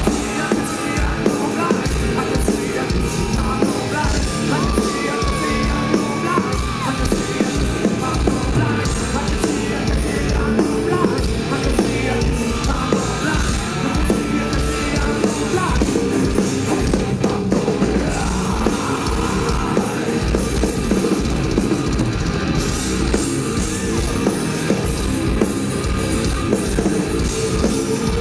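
Live nu-metal band playing loud, heavy music with a pounding drum beat, and the singer yelling over it.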